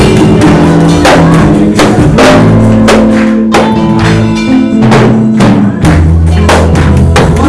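Loud live band music: drum kit strokes over long held bass notes, with a steady beat.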